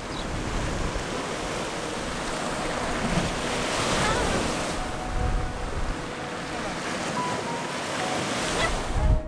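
Sea waves breaking and washing over a rocky, pebbly shore as a steady surf noise. Wind buffets the microphone, heaviest near the end.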